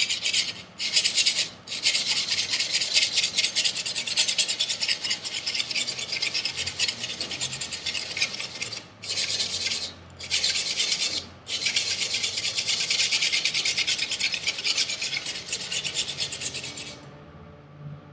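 Steel blade of a Chinese chef knife scraping in quick back-and-forth strokes on 320-grit sandpaper, grinding away the shoulder of its V-edge toward a convex edge. The strokes are a steady gritty rasp that pauses briefly a few times and stops about a second before the end.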